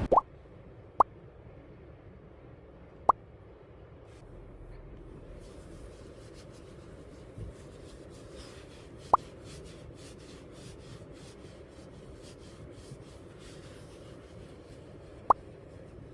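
Five short, quick upward-sweeping 'plop' blips, like water-drop sound effects, spaced irregularly over a faint steady background.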